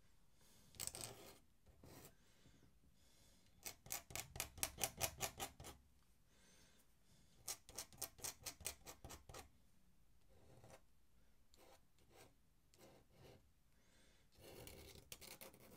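Faint scratching of a metal dip-pen nib on paper as short ink strokes are drawn. There are two quick runs of about five or six scratches a second, each lasting about two seconds, with a few single strokes between.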